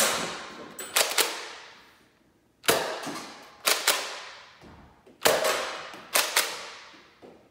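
A Nerf Rival Kronos spring-powered foam-ball blaster being fired and re-primed in turn: a loud snap roughly every two and a half seconds, each followed about a second later by a quick double clack as the slide is pulled back and pushed forward. Each sound rings on with a short echo.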